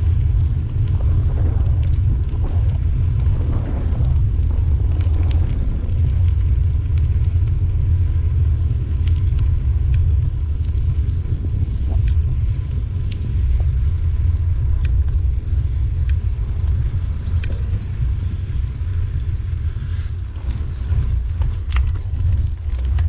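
Steady low rumble of wind buffeting a handlebar-mounted camera's microphone and bicycle tyres rolling over towpath and road surface. Scattered sharp ticks come through from the bike.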